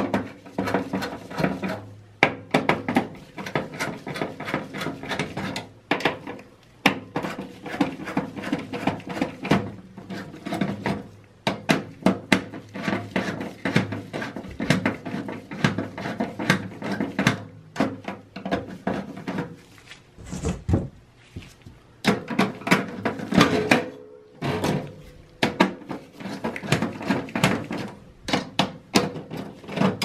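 Hand screwdriver turning the CPU heatsink's retaining screws in a server's metal chassis: a dense run of clicks, scrapes and small knocks, with a few short pauses.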